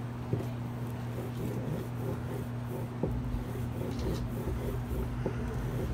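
A stone hand roller (metlapil) pressed and slid over cocoa beans on a stone metate, giving soft gritty scraping and a few light knocks, over a steady low hum.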